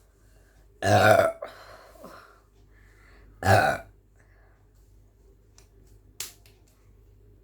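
A woman burping twice from drinking carbonated Jaljeera masala soda: two loud, pitched burps about two and a half seconds apart, the first a little longer. A short click comes near the end.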